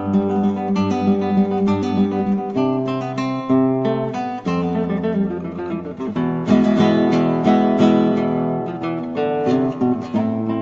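Background music: acoustic guitar music with plucked and strummed chords.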